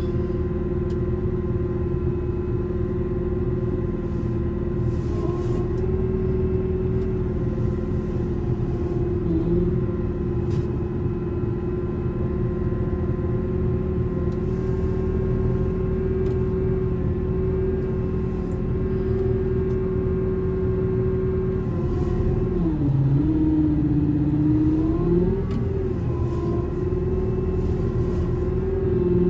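Diesel engine running steadily while it drives a slow winch hauling an old beet harvester onto a trailer. About 22 seconds in, its note sags under load, then recovers a few seconds later.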